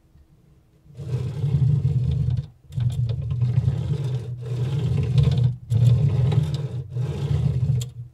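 Anet A8 3D printer's extruder carriage pushed back and forth by hand along its X-axis steel rods, five strokes starting about a second in, each with a rough, low-pitched noise from failed linear bearings running on scored rods.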